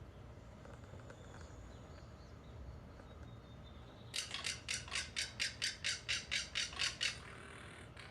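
A hawk calling: a rapid series of about a dozen high, scratchy notes, roughly four a second, lasting about three seconds and starting about halfway through.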